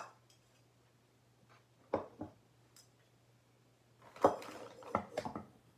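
Handling noise as decorative items are put down and picked up. A click at the start, a couple of knocks about two seconds in, then a louder cluster of knocks and rustling about four seconds in.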